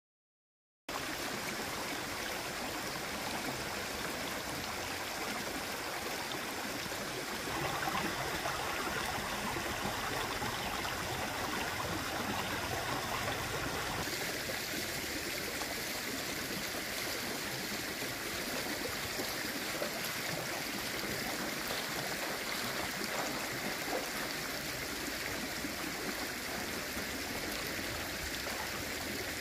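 Stream water running steadily, starting about a second in, its rushing sound changing a little in texture about halfway through.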